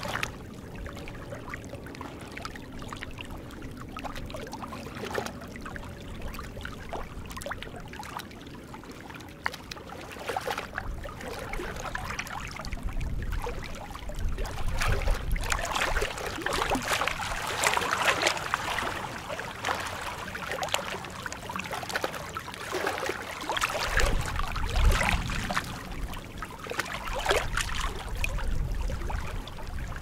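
Small waves lapping and trickling among shoreline rocks, growing louder and more splashy from about a third of the way in. Now and then a low rumble of wind gusts on the microphone.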